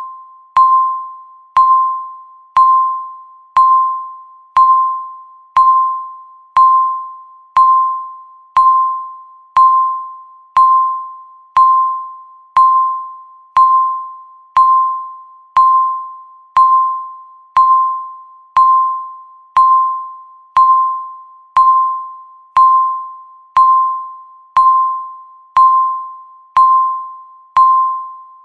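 Countdown-timer beep sounding once a second, a single clear tone that starts sharply and fades away before the next, marking each second ticking down.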